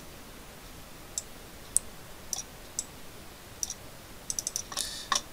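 Computer mouse button clicking: single clicks spaced out, then a quick run of clicks near the end.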